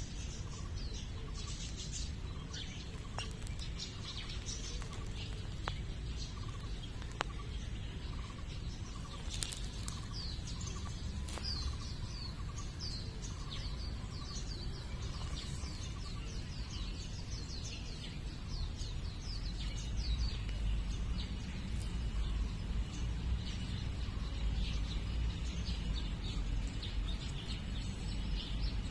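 Small birds chirping: many quick, short, high chirps overlapping throughout, over a steady low rumble.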